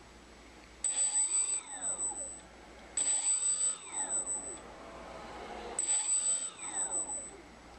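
Four Emax CF2822 brushless outrunner motors driving propellers, throttled up and back down three times. Each run is a whir of about two seconds that rises in pitch and falls again, with a steady high whine over it.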